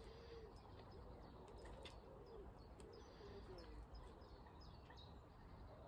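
Faint birdsong: small birds chirping in short notes, and a pigeon cooing in a low, repeated phrase, over a faint low rumble.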